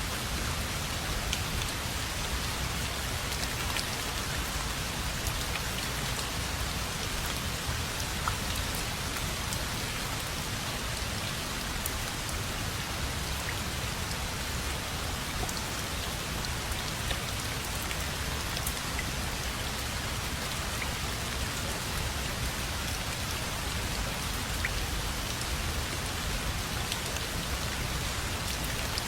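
Steady rain falling on a surface, a dense even hiss with scattered individual drops ticking through it.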